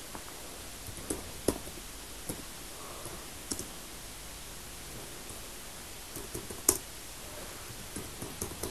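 Computer keyboard keys pressed a few at a time, irregular sharp clicks over faint room hiss, with one louder click near the end.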